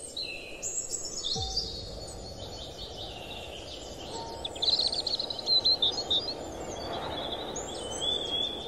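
Birds chirping and trilling over a steady background hiss, the busiest burst of calls about halfway through: outdoor nature ambience.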